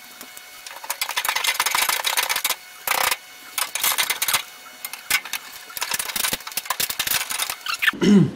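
Rapid rattling clatter of a tool working the car's sheet-metal body skin loose from its wooden door frame. It comes in several bursts of a second or more, separated by short pauses.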